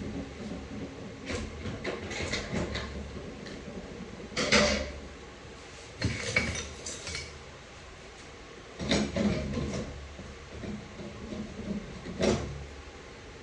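A screwdriver prying the oil pump out of a ZF 8HP45X automatic transmission case: metal clinks, knocks and scrapes in five short bouts, the loudest about four and a half seconds in.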